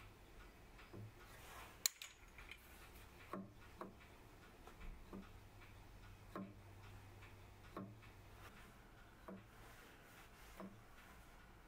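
Faint, slightly uneven clicks and soft knocks, about one every second and a half, with one sharper click about two seconds in. The sound comes from the Myford lathe spindle and a homemade 96-tooth dividing plate being turned and set by hand against a steel index bar.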